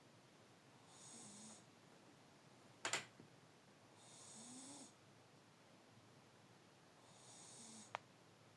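A sleeping pet snoring faintly, one slow breath about every three seconds, each with a hissing whistle. A sharp click about three seconds in is the loudest sound, with a smaller click near the end.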